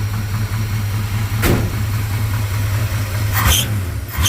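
1966 Dodge D100's 318 V8 idling steadily after a fresh start, with one sharp knock about a second and a half in and short harsh bursts near the end.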